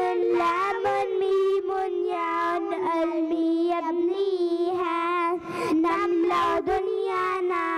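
Two children singing an Arabic children's song about the Arabic language into handheld microphones, holding long notes.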